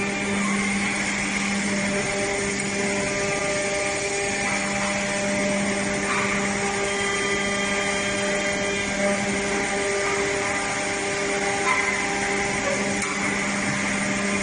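Woodworking production machinery running steadily: an even hum with a noisy whir over it.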